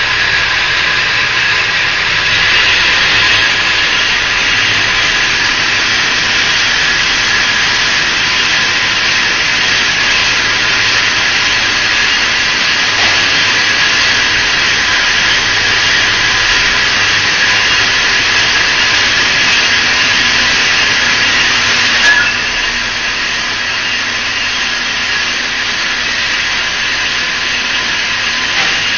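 Hexagonal wire netting machine running with a steady, loud mechanical whine and hiss. There is one sharp click about three-quarters of the way through.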